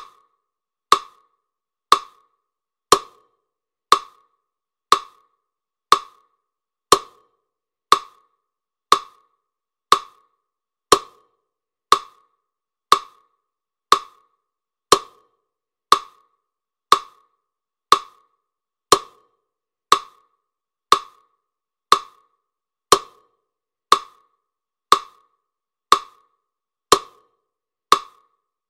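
Clock-like ticking: one sharp, woody click every second, evenly spaced, with silence in between.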